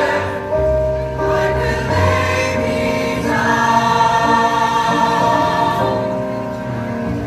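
Choir singing a gospel-style song, holding long notes that change every second or so over steady low notes.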